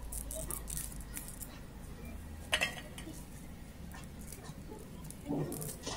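Small crackles and clicks of dry garlic skins being peeled off cloves by hand, with one sharper click about two and a half seconds in.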